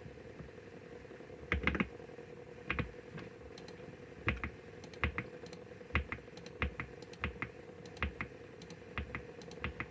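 Computer keyboard typing: irregular keystrokes with short pauses between them, a few in quick pairs. A faint steady hum runs underneath.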